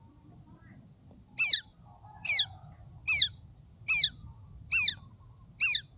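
Collared falconet calling: six short, high-pitched calls, each sliding downward, repeated evenly a little under a second apart.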